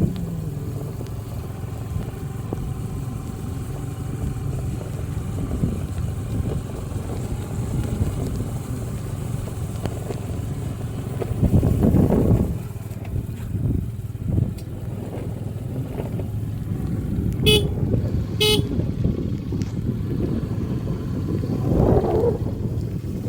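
Steady low rumble of wind on the microphone and a moving vehicle, with two short horn beeps about a second apart near the end.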